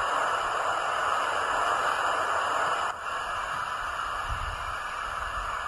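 A Hornby TTS sound decoder in a model steam locomotive plays a steady steam hiss through its small sugar cube speaker while the loco stands still. The hiss drops to a lower level about three seconds in.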